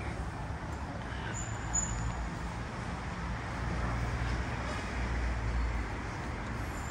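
Street traffic noise: a steady low rumble of road traffic that swells for a couple of seconds in the middle, as if a vehicle passes.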